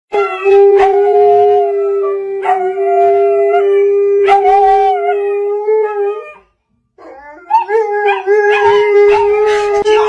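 A large husky-type dog and a puppy howling together. One long, steady howl is held for about six seconds and breaks off briefly. Then the howling starts again, with a higher, wavering voice over it.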